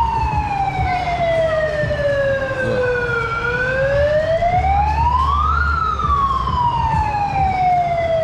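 Siren wailing in slow cycles: the pitch climbs for about two seconds, then slides down for about four, peaking once a few seconds in. It is sounded as new stock is brought out onto the floor.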